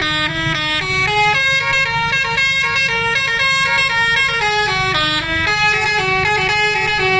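A bus's multi-tone 'telolet' musical air horn playing a melody, stepping from note to note several times a second, over the steady low rumble of the bus. Near the end it holds on one repeated note.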